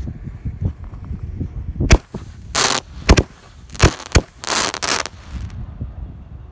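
Firework mine shells firing one after another from a mortar rack: about five sharp bangs in quick succession from about two seconds in, with two longer hissing rushes between them.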